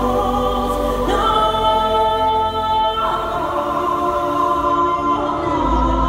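Stage show music: a choir of voices holding long sustained chords that change every second or two. A deep low drone underneath drops out about halfway and comes back near the end.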